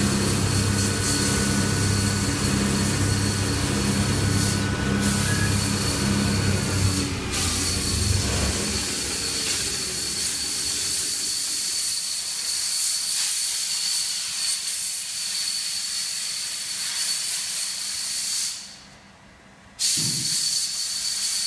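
CNC lathe turning a metal bar: the spindle drive hums under a steady hiss and a thin high whine. About eight seconds in the hum fades away with a falling pitch, leaving the hiss. Near the end the hiss drops out for about a second, then comes back with a low thump.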